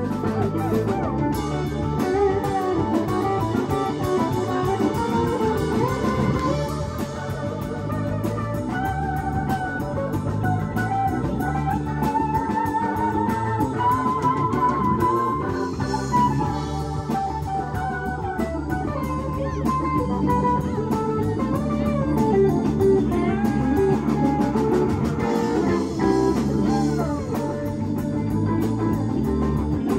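Live rock band playing an instrumental passage: an electric guitar lead with bending, sliding notes over electric bass, drum kit and keyboard.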